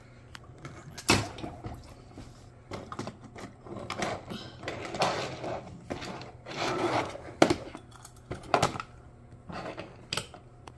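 Die-cast Disney Pixar Cars toy cars pushed by hand across a tabletop: wheels rolling and scraping, with several sharp clicks as the metal cars knock against each other and are set down.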